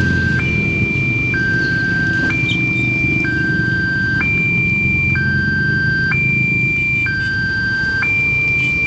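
Railway level-crossing warning alarm sounding a two-tone hi-lo signal, a lower and a higher note alternating about once a second, the warning that a train is coming and the barrier is down. A steady low rumble runs beneath it.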